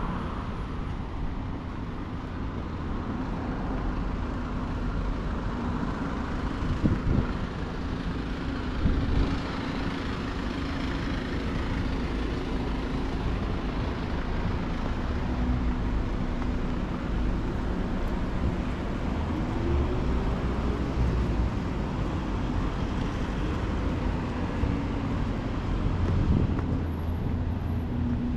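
Street traffic in a city: a steady hum of engines with motor vehicles passing, a few of them louder for a moment.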